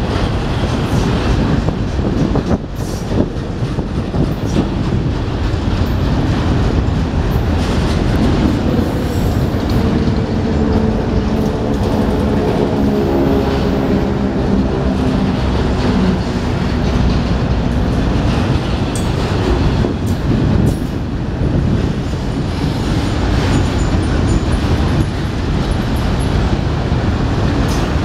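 A freight train of enclosed autorack cars rolling past at steady speed: a continuous rumble and rattle of steel wheels on rail, with faint clicks at the rail joints. A humming note rises for several seconds around the middle.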